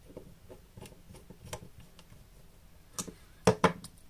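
Small scattered clicks and ticks of a precision screwdriver and plastic parts on a small action camera's housing, then a few sharp clicks about three seconds in, as the metal screwdriver is laid down on the tabletop.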